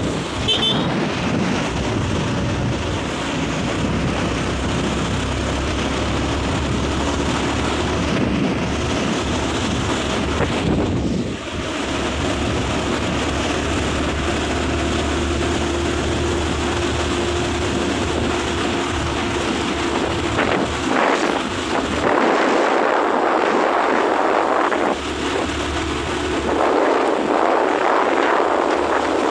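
Wind rushing over the microphone of a moving motorcycle, with the engine running steadily underneath. About three quarters of the way through, the wind noise turns harsher and gustier.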